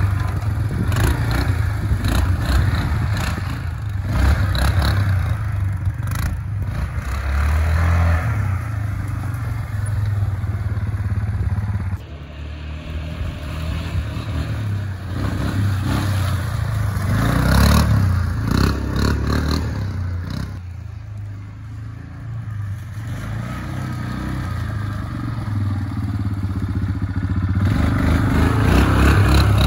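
Yamaha Kodiak ATV's single-cylinder engine running and revving as it is ridden through snow, rising and falling with the throttle, with louder surges past the microphone about two thirds of the way through and near the end.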